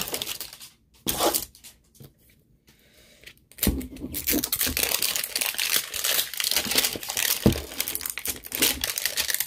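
Plastic wrapping on an L.O.L. Surprise doll ball being torn and crinkled by hand as the layers are unwrapped. Two short rustles in the first second or so and a brief lull, then continuous crinkling and ripping from about four seconds in.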